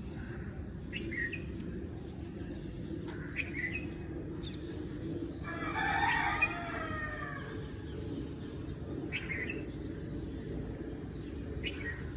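A rooster crows once, a call of about two seconds starting about five seconds in, over short bird chirps every few seconds and a steady low background rumble.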